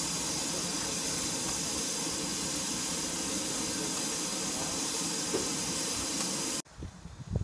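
Steam hissing steadily from a standing BR Standard Class 2 2-6-0 steam locomotive, number 78018. It cuts off abruptly near the end, leaving a few faint knocks.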